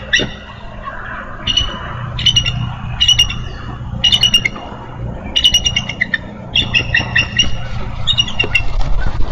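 Bald eagle calling at the nest: repeated bursts of high, rapid chattering notes as its mate arrives to take over incubating the eggs. A steady low rumble of wind runs underneath.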